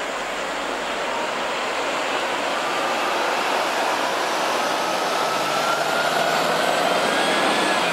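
Articulated city bus driving past on a wet street: tyre hiss and engine noise swell as it approaches. A thin whine rises slowly, then drops as the bus goes by near the end.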